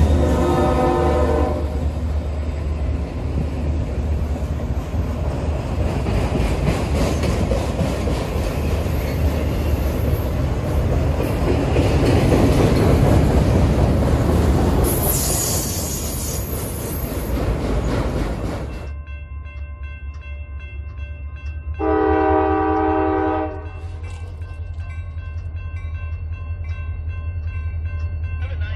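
A CSX freight locomotive's horn fading out, then a long autorack freight train rolling past close by, with steady wheel and rail noise and a brief high squeal about 15 seconds in. After an abrupt change, a grade-crossing bell rings steadily while an approaching train sounds its horn for about a second and a half.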